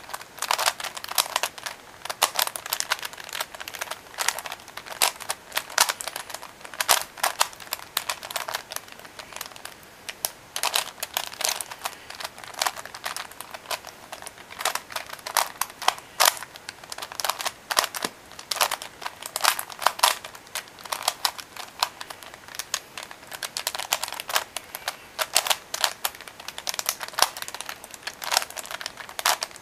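Rubik's cube being turned with one hand: rapid, irregular plastic clicking of the layers turning, in clusters with short pauses.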